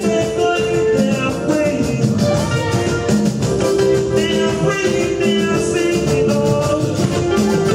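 Live African-style gospel worship music: a man singing into a microphone over electronic keyboard and hand-played conga drums, with a steady beat.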